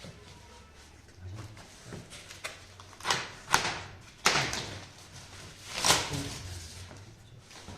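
Monitor packaging being handled and pulled open: a few sharp knocks and scrapes, clustered between about three and six seconds in, with quieter rustling in between.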